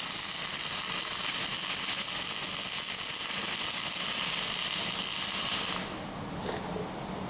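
Steel arc welding: the arc runs with a steady hiss while laying a full penetration weld on an angle bar joint, and cuts off about six seconds in when the bead is finished.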